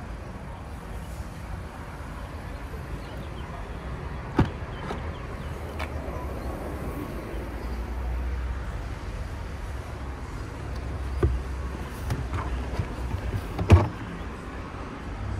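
Tailgate and boot of a Volkswagen T-Cross being opened and handled: a few sharp clicks and knocks of the latch and boot floor panel, the loudest near the end, over a steady low rumble.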